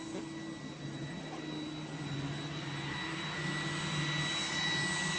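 iRobot Roomba 980 robot vacuum running on its automatic power setting: a steady high fan whine over a low motor hum, getting gradually louder.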